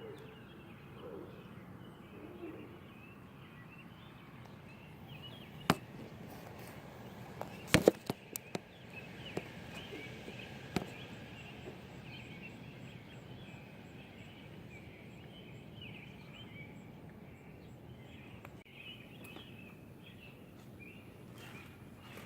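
Outdoor ambience with birds chirping faintly throughout. A few sharp clicks cut through it, one about six seconds in, a cluster of the loudest about two seconds later, and one more a few seconds after that.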